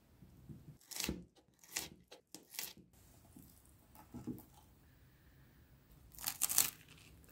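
Knife cutting through crunchy food on a wooden cutting board: three short crunching strokes about a second apart, a softer one in the middle, and a louder cluster near the end.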